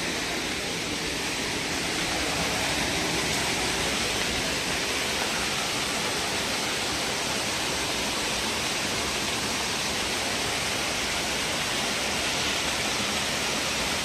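Small waterfall cascading over rocks: a steady, even rush of water.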